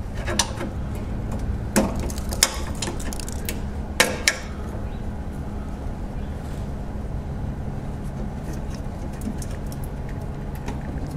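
Plastic wiring-harness clips and connectors clicking a few times as they are pried out of a car's radiator support, over a steady low hum.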